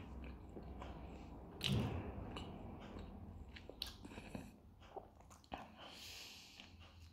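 Close mouth sounds of a man chewing a pljeskavica in a toasted bun, with small wet clicks and smacks, then a bite into the bread-wrapped patty about six seconds in.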